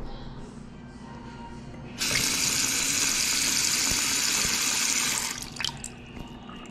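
Bathroom sink faucet turned on, water splashing into the basin and draining straight down the freshly unclogged pop-up drain, then shut off about three seconds later, with a few last drops after it.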